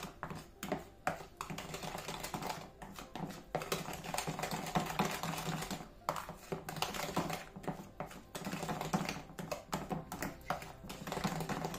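Plastic whisk beating flour into thick cake batter in a plastic dish, a rapid, irregular run of clicking and tapping strokes against the sides, with a brief pause about halfway through.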